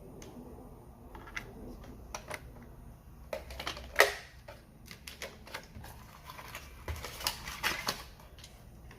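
Irregular light clicks and taps, with one sharper knock about four seconds in and a quicker run of clicks near the end.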